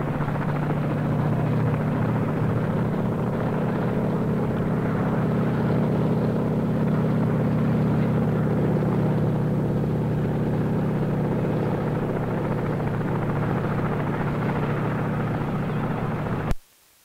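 Steady drone of a formation of CH-47 Chinook tandem-rotor helicopters in flight, with heavy rotor and turbine noise. The sound cuts off suddenly with a click near the end.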